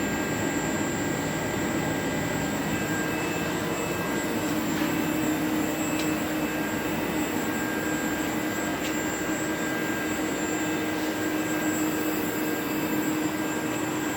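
TRAK DPM-5 CNC vertical mill's spindle running steadily at about 1600 RPM: a steady machine whine and hum that grows a little stronger about four seconds in, with a few faint clicks.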